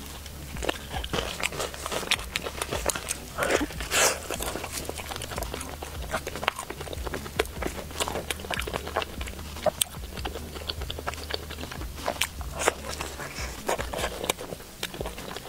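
Close-miked biting and chewing of crispy fried chicken coated in cheese sauce and seaweed pork floss: many small crunches and crackles in an uneven patter, with a louder, denser burst of crunching about four seconds in.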